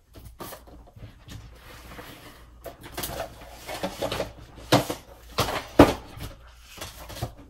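Handling noise: rustling and a series of knocks and thumps as objects are picked up, moved and set down, the sharpest few knocks coming about five to six seconds in.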